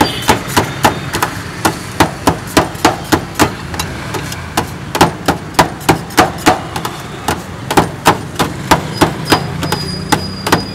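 A metal blade chops shaved shawarma chicken on a steel tray with rapid, even strikes, about three a second. A low steady hum runs underneath.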